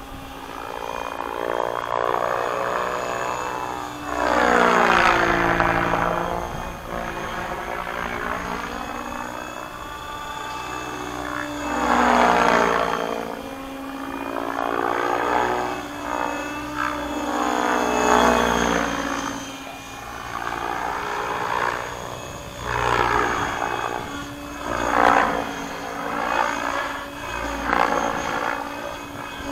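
Align T-Rex 700X electric RC helicopter manoeuvring in flight at a low headspeed of about 1700 rpm. Its rotor blades and 850MX brushless motor make a pitched hum that swells, fades and bends up and down in pitch, again and again, as it swoops past and turns.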